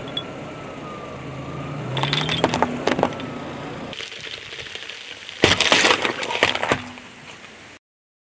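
A car tyre rolls onto a pile of sidewalk chalk sticks, snapping them with several sharp cracks about two to three seconds in, over the low hum of the car's engine. Then a car tyre crushes a watermelon, a louder burst of cracking and wet crunching near the middle that lasts about a second and a half.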